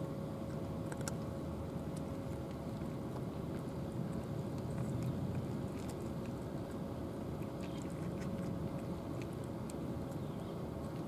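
Two cats eating dry kibble from plastic trays, with faint scattered crunching clicks of chewing. Under it a steady low rumble and a thin steady hum run throughout.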